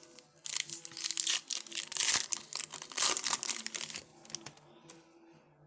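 Foil trading-card pack wrapper being torn open and crinkled, in a run of loud rustling and tearing that dies away after about four seconds.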